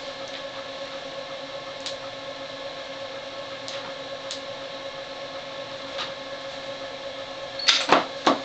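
Steady machine hum with light clicks as plastic dialysis tubing and clamps are handled on the machine, then a quick run of three loud knocks near the end.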